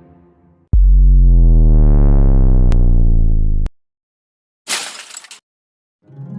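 A loud, low, buzzy synthesizer tone that holds for about three seconds, rising slightly in pitch, then cuts off. After a moment of silence comes a short hissing burst, and music starts near the end.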